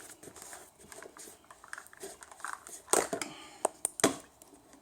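Handling noises of a new spin-on oil filter and its packaging: scattered light clicks and rustles, with two sharper knocks about three and four seconds in.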